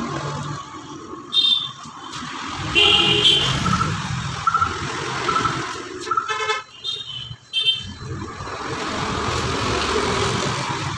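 Street traffic passing, with several short vehicle horn toots sounding over it, the loudest about three seconds in and again between six and eight seconds.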